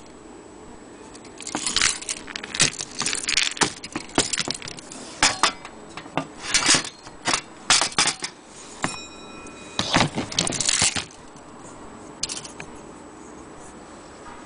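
Iron clock chains of a longcase clock movement rattling and clinking as they are handled, in irregular jangling clusters for several seconds. About nine seconds in there is a brief metallic ring.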